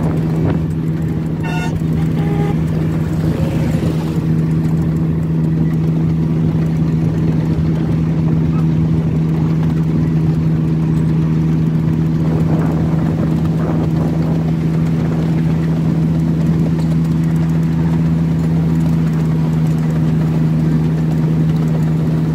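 Miniature railway diesel locomotive's engine running at a steady speed, heard from the carriage right behind it: an even drone that holds one pitch.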